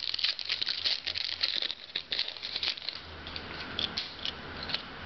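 Crinkling and tearing of a foil trading-card pack being opened, with irregular crackles that thin out into occasional clicks and rustles over the last few seconds.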